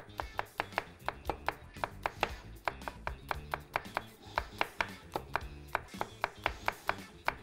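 Cleaver chopping a red chili pepper on a wooden cutting board: quick, even knocks about four a second. Soft background music plays underneath.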